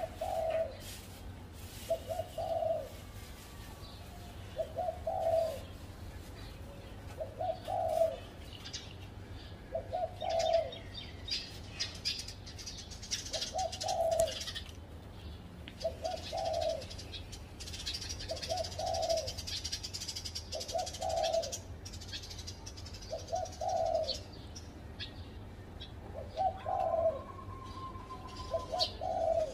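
Spotted dove cooing, its call repeated about every two and a half seconds. Other small birds chirp more faintly at a higher pitch in the background.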